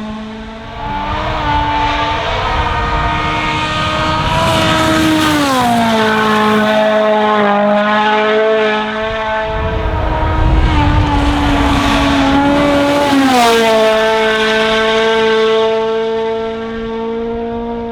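Toyota Yaris WRC rally car's 1.6-litre turbocharged four-cylinder engine running hard at high revs, its pitch dropping sharply twice, about five and thirteen seconds in. A loud rush of noise comes around ten seconds in.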